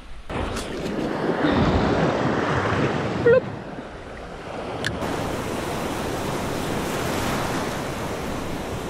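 Small waves washing in the shallows, with wind buffeting the microphone. The surf and wind noise rise sharply about a quarter second in, and there is a brief sharp sound a little over three seconds in.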